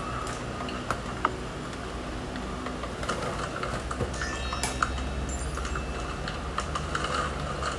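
Light, scattered clicks and taps of kitchen utensils over a steady low hum.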